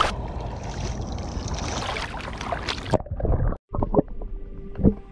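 Water sloshing and wind on the microphone. Just after three seconds the sound cuts off abruptly, then come muffled knocks and clicks with faint steady music tones entering.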